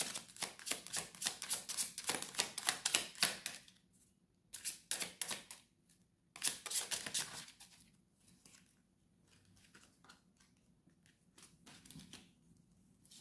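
A tarot deck being shuffled by hand: fast runs of card clicks and flutters, with a long run at the start and two shorter runs at about five and seven seconds. After that come only a few scattered soft taps as cards are handled and laid down.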